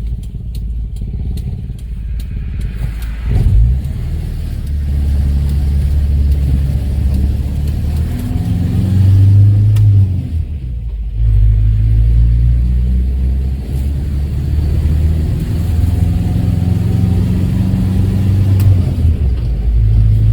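Renault R10's rear-mounted four-cylinder engine running under load, its note rising and falling, with a brief drop in sound a little past halfway.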